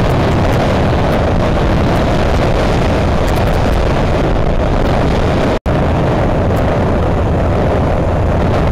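Steady wind and road noise on a bike-mounted camera microphone while riding a Suzuki GN125 motorcycle, its small single-cylinder engine running beneath it. The sound cuts out for an instant about two-thirds of the way through, then carries on as before.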